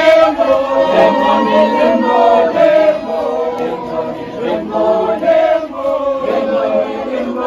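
A crowd of many voices singing together in chorus.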